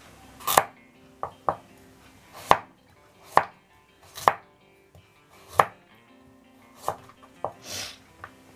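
Kitchen knife chopping carrots on a cutting board: about ten sharp, unevenly spaced chops, roughly one a second, with a brief scraping sound near the end.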